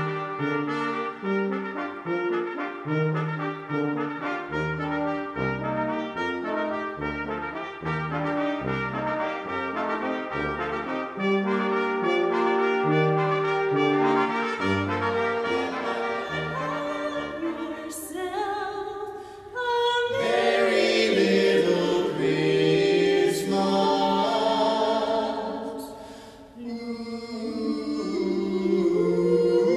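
Brass quintet of trumpets, French horn, trombone and tuba playing in parts. About twenty seconds in it cuts to a louder, fuller piece of music with a few sharp crashes. Near the end it cuts again to a group of carolers singing.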